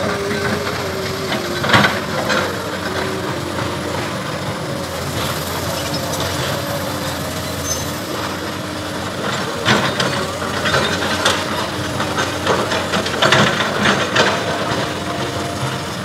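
Diesel engines of Komatsu crawler excavators running steadily, with irregular metal clanks and knocks, the loudest about two seconds in and a cluster between about nine and fourteen seconds in.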